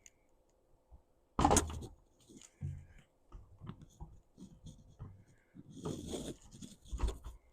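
Packaging and statue parts being handled: scattered rustles and light knocks, with one loud, short rustle about a second and a half in.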